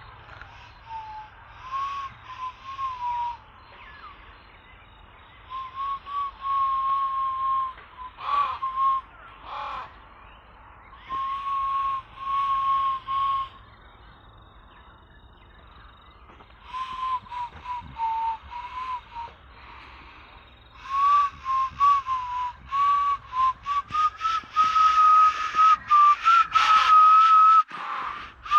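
A person whistling a slow tune in short phrases with pauses between them, a clear single note with a breathy hiss over it. The whistling gets busier and louder in the last third, and the pitch rises a little.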